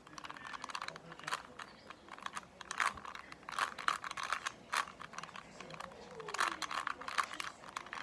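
3x3 Rubik's cube being turned quickly by hand: irregular clusters of light plastic clicks and rattles as its layers snap around.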